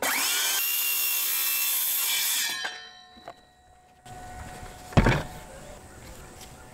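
DeWalt cordless circular saw spinning up and cutting a short trim off the end of a 2x4 for about two and a half seconds, then winding down with a falling whine. A single thump about five seconds in.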